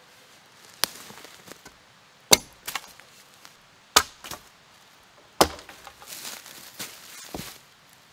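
Rinaldi Calabria 700 g axe chopping into a freshly felled tree trunk: about five sharp strokes, roughly one every one and a half seconds, with a few softer knocks between them.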